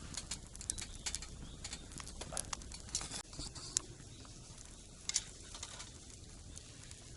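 Wood campfire crackling: faint, irregular small pops and snaps.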